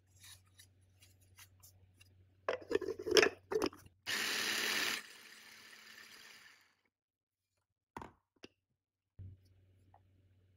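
Plastic clicks and knocks as a small food processor's motor top is fitted onto its bowl, then the motor runs for about a second grinding cooked salted egg yolks and trails off. A few single clicks follow near the end.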